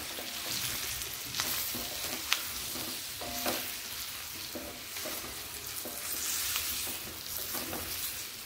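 Oil sizzling in a stainless steel kadhai as fried baby potatoes and small onions are stirred with a wooden spatula to mix in dry spices. Scraping of the spatula runs over a steady hiss, with a few sharp knocks of wood on the steel pan.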